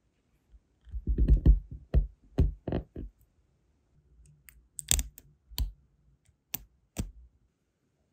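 A brass wax-seal stamp and metal tweezers being handled over a silicone mat. A quick run of soft knocks and taps comes first, then about half a dozen sharp, separate clicks as the tweezers work at the set wax in the stamp head.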